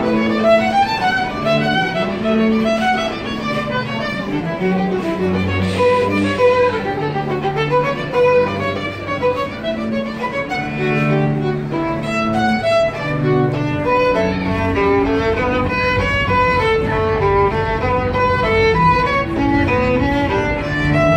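Small live string ensemble playing classical music, a violin carrying the melody over long low notes from a lower string instrument.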